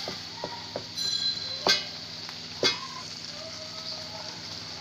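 Spiced minced-beef masala sizzling as it fries in a metal pot, stirred with a wooden spatula that knocks against the pot three times with short ringing clanks.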